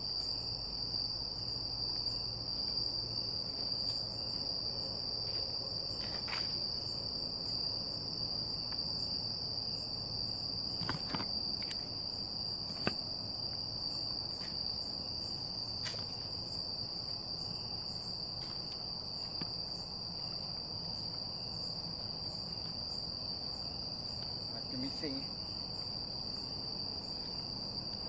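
A chorus of night insects, crickets or cicadas: one steady high-pitched drone with a faster pulsing trill above it, and a few faint clicks.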